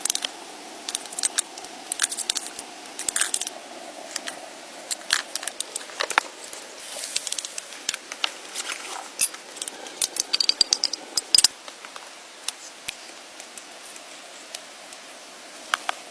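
Irregular crackling with many sharp snaps and clicks, busiest in the middle, and a brief high squeak a little past the middle.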